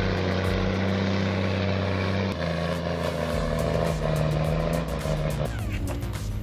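A heavy machine's engine running steadily, with background music. Its pitch jumps abruptly a little over two seconds in and again near the end.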